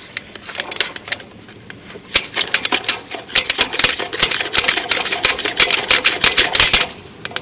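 Rapid, irregular clicking and rattling of a drain inspection camera's push cable being worked back and forth in the pipe, trying to free the camera head stuck in the line. The clatter builds from about two seconds in and stops just before the end.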